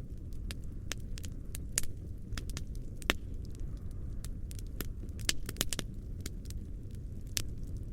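Medium campfire burning: a steady low noise of the flames with irregular sharp crackles and snaps, a few louder pops standing out among them.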